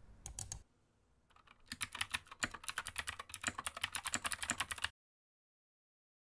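Typing on a laptop keyboard: a few keystrokes, then about three seconds of rapid key clicks that stop abruptly.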